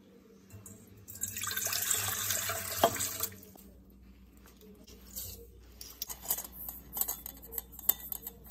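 Water poured from a glass measuring cup into a stainless steel mixing bowl, a steady splashing rush lasting about two seconds with a sharp clink near its end. This is followed by a run of light clicks and taps as a spoon and dry ingredients go into the bowl.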